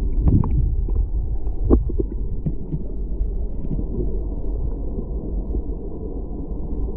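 Creek water heard through an underwater camera housing: a steady, muffled low rush, with a few short knocks and clicks in the first two seconds.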